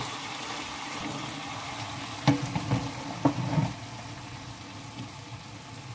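Sliced bell peppers and onion sizzling in a frying pan as a wooden spatula stirs them, with two sharp knocks about a second apart a little over two seconds in. The sizzle drops lower after about four seconds as the pan comes off the burner.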